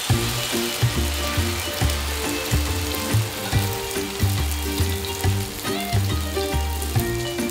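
Potato pancake batter sizzling in a generous layer of hot oil in a cast-iron pan, a steady frying hiss. Background music with a steady bass beat plays along with it.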